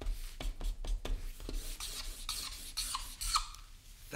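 Black marker pen on a paper pad: the short scratching strokes of handwriting, then quick back-and-forth zigzag scribbling, a run of rasping rubs.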